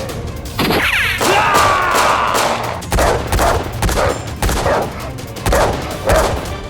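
Sound-effect gunfire: a falling whistle-like sweep over the first two seconds, then a rapid, irregular run of sharp shots.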